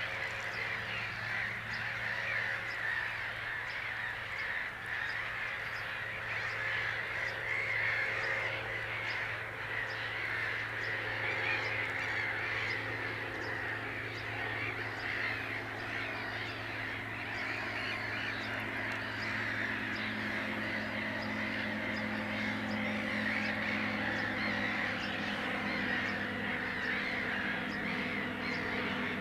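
Birds calling continuously over a steady low hum, with steady tones that grow stronger in the second half.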